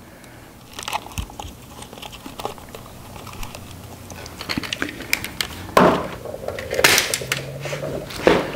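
Camera handling noise: the camera is gripped and moved, giving rustling, scrapes and scattered clicks on the microphone. Three louder bursts of rubbing come in the second half.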